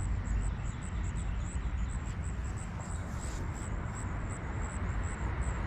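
Outdoor ambience with a steady low rumble and a faint, evenly repeated high chirping.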